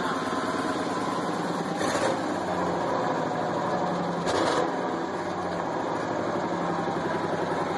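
1998 Ford Ranger's 4.0-litre V6 running with an even, rhythmic pulse, on two dead cylinders with a third failing. Two brief hisses come through about two and four and a half seconds in.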